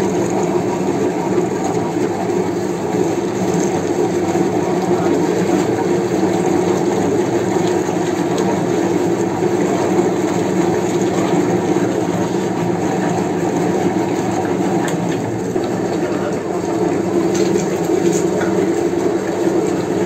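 Old meat mincer machine running steadily: a continuous mechanical drone with a steady hum, unchanging throughout.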